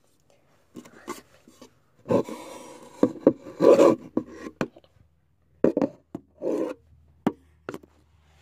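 Handling noises from a container of slime being picked up and opened: irregular rubbing and scraping with several sharp clicks.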